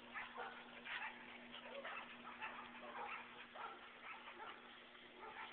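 Black pit bull making short, faint, irregular sounds, a few a second, with her toy held in her mouth, over a steady low hum.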